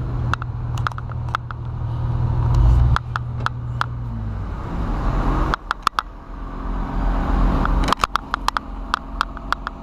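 Komatsu hydraulic excavator's diesel engine running with a steady low drone, easing off and dropping in pitch about four to five seconds in. Scattered sharp clicks and knocks sound through it.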